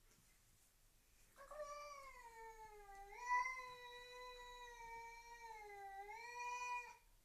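A domestic cat yowling: one long, wavering call of about five and a half seconds, starting about a second and a half in, its pitch dipping and rising twice and loudest near the first rise.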